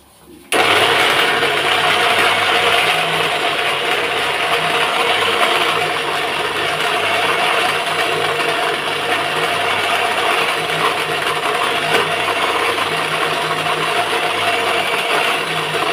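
Electric mixer grinder running at full speed, grinding chana dal with green chillies, garlic, cumin and black pepper in a little water into a paste. It switches on suddenly about half a second in and runs steadily.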